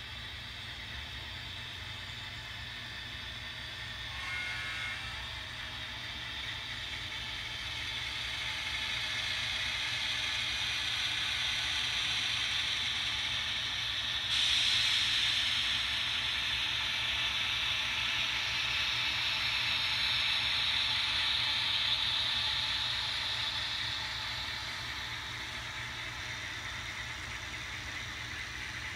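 HO scale model locomotives running on track: a steady, hiss-like whir of motors, gearing and DCC sound-decoder locomotive sounds. It grows louder as a locomotive nears, jumps up abruptly about fourteen seconds in, and eases off near the end. A short pitched tone sounds about four seconds in.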